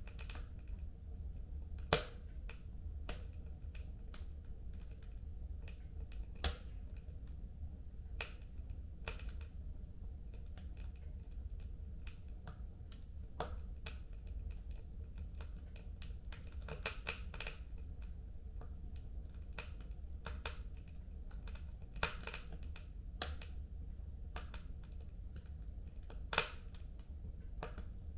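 Wood fire in a home fireplace crackling, with irregular sharp pops and snaps over a low steady rumble; the loudest pop comes about two seconds in.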